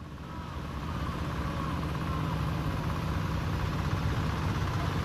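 Small fishing boat's engine running steadily, a low hum that grows louder over the first second or so and then holds.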